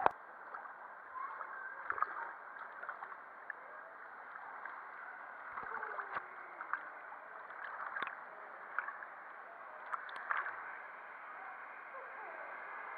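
Pool water lapping and gurgling at the waterline, heard muffled through a camera's waterproof housing, with a few small splashes and clicks.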